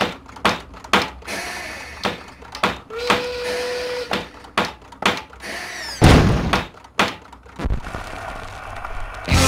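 Workshop sound effects: a hammer tapping on wooden toys among a string of irregular knocks and clunks, with a short steady tone about three seconds in and one loud heavy thump about six seconds in.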